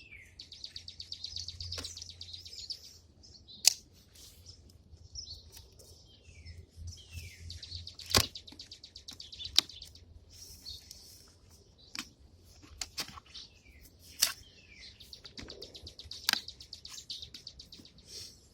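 A cardboard shipping box being opened by hand, giving a handful of sharp snaps and clicks. Birds chirp in rapid high trills with short falling notes throughout.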